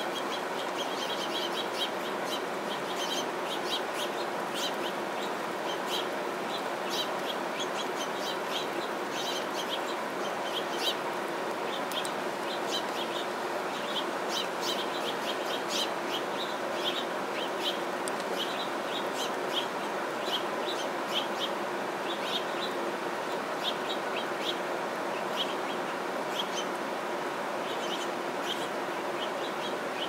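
House finches chirping: many short, high chirps repeating all through, over a steady background hiss.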